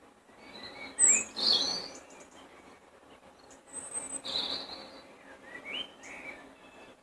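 Songbirds singing: a loud run of quick, varied chirping phrases about a second in, another around four seconds in, and fainter calls in between.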